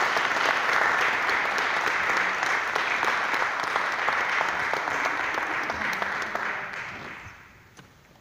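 Congregation applauding at length, then the clapping fades away over the last couple of seconds.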